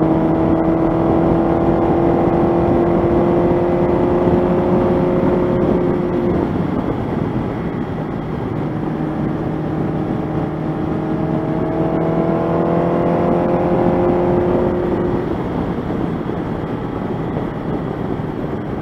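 Honda CB700SC Nighthawk's inline-four engine running while riding, with heavy wind and road noise throughout. Its note sags slowly for about six seconds and sinks under the wind. About nine seconds in it comes back and climbs gently, then fades again near the end.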